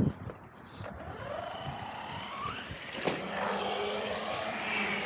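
Traxxas Sledge RC monster truck's brushless electric motor whining, rising in pitch as it speeds up, then running on steadily; a sharp knock about three seconds in.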